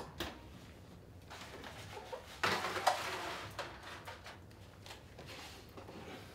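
Oven door opened and an aluminium foil roasting pan slid onto the metal oven rack: a few faint clicks, then a short clatter and scrape about two and a half seconds in, followed by light knocks.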